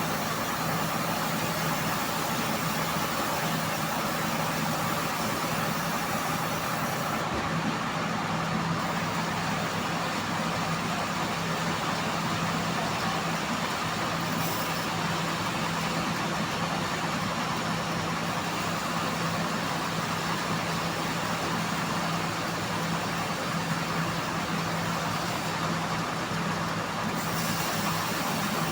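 Band saw mill running steadily, a constant low hum under an even noisy whine.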